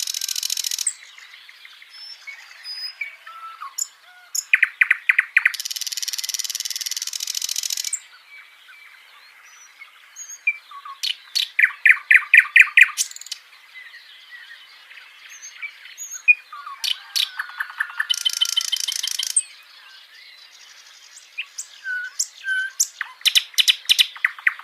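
Several birds singing and calling over one another. There are fast, high trills lasting about two seconds each, quick runs of sharp repeated chirps, and scattered single notes in between.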